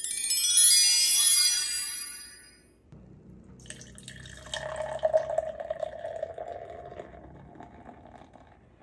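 A short, bright shimmering chime sound effect that fades out. Then beer is poured from a bottle into a glass, a steady splashing pour that fills the glass and tails off near the end.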